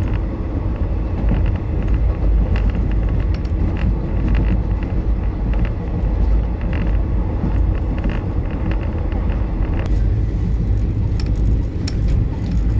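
Steady low rumble of a moving vehicle, with scattered faint clicks over it.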